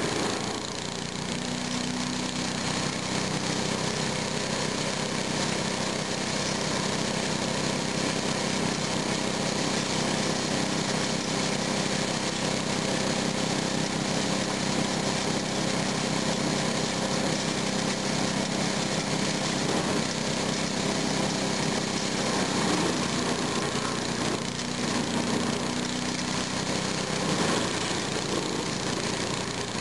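Kemp shredder-chipper running steadily on its small engine while branches and brush are fed in and shredded.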